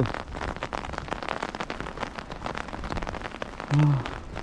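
Falling snow pattering steadily close by: a dense, irregular fine ticking like light rain. A man's voice gives a short hum near the end.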